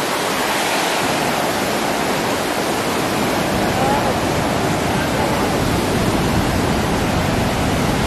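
Steady, even rush of the Great Falls of the Passaic River and the fast white water below it.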